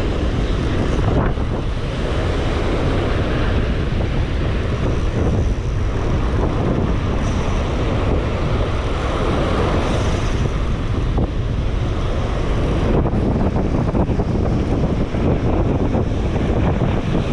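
Steady, loud wind noise buffeting the microphone, with surf behind it.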